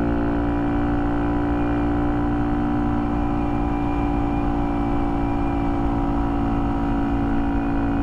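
Honda Monkey's single-cylinder engine running at a steady cruise, a constant even drone that does not rise or fall.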